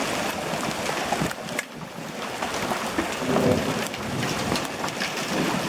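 Pea-sized hail and rain hitting the roof of an RV, heard from inside as a dense, steady clatter of small ticks.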